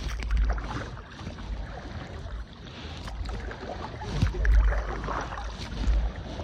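Water splashing and lapping around a kayak as it is paddled, with gusts of wind buffeting the microphone several times.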